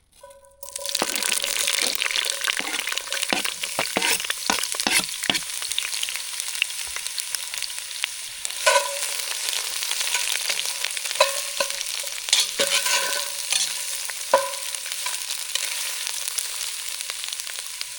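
Vegetables sizzling in hot oil in a frying pan, the sizzle starting about half a second in as they go into the pan. A utensil scrapes and clinks against the pan now and then as they are stirred.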